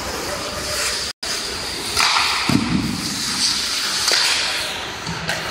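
Ice hockey skates scraping and hissing on the rink ice during play. The hiss grows heavier about two seconds in, with a couple of sharp clicks. The sound drops out for an instant about a second in.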